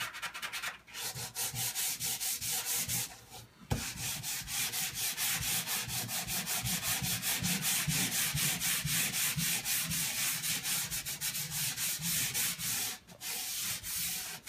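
180-grit sandpaper rubbed back and forth by hand over stained cabinet wood, lightly taking off the top coat: quick, evenly paced scratching strokes, several a second. It pauses briefly about a second in, around three seconds in and near the end, with a sharp tap as it starts again after the second pause.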